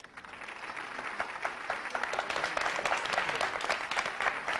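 Studio audience applauding, the clapping swelling over the first second and then holding steady.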